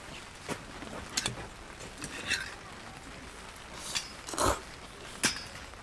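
Someone eating from a bowl: a few light clicks of utensils against the bowl and a short slurp about four and a half seconds in.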